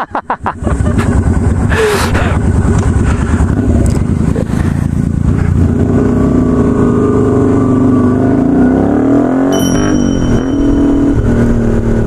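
Yamaha Virago 250 custom chopper's air-cooled V-twin engine running under way, fairly loud. Its note climbs for a few seconds, drops sharply at a gear change about ten seconds in, then runs steady again.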